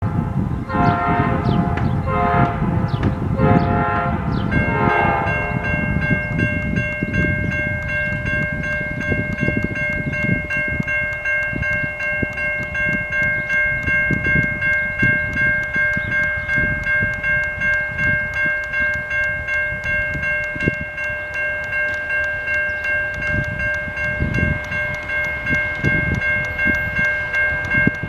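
A few short horn blasts from the approaching CN Brandt diesel hi-rail truck, then a railroad grade-crossing bell starts about four seconds in and rings steadily, its strikes repeating evenly, over a fluctuating low rumble.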